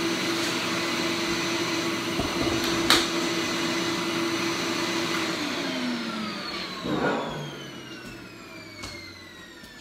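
Shop vacuum running with a steady whine, then switched off about five seconds in, its motor winding down with a falling pitch. A sharp click about three seconds in and a knock near seven seconds.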